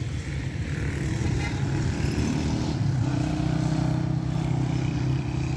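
Road traffic: a motor vehicle's engine running close by with a steady note that grows stronger from about three seconds in.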